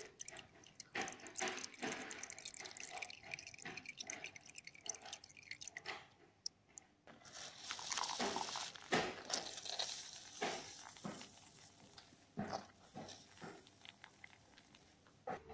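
A thin stream of freshly blended gotu kola juice trickling and dripping into foamy juice in a plastic jug, an irregular crackly splashing. It eases off briefly about six seconds in, then runs stronger for a few seconds before tapering.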